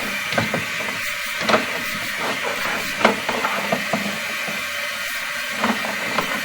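Sewer inspection camera's push cable being fed down a drain line, with irregular clicks and knocks over a steady hiss.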